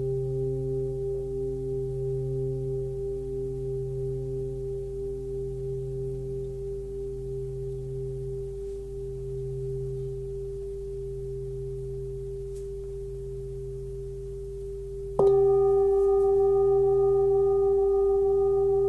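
A 25.3 cm hand-forged Tibetan singing bowl with a 134 Hz fundamental (note C) ringing with several overtones and a slow pulsing wobble, gradually fading. About 15 seconds in it is struck again and rings out louder.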